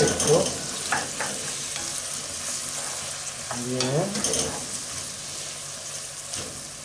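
Chopped onion, peppers and green onion sizzling as they sauté in a pot, stirred with a wooden spoon that scrapes along the pot, with a few louder scrapes.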